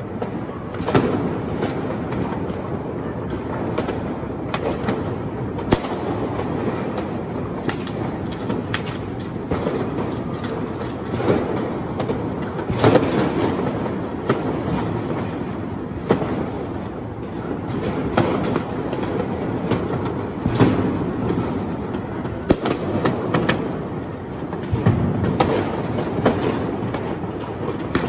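Fireworks and firecrackers going off all around: a dense, continuous rumble of many distant bangs with sharper, nearer cracks standing out every second or two.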